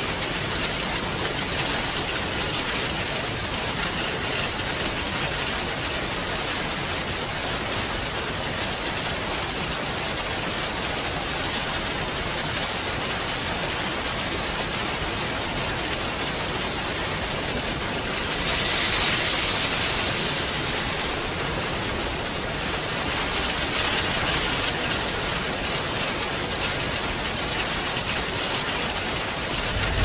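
Steady rain falling, an even hiss of drops, swelling briefly louder a little past halfway through.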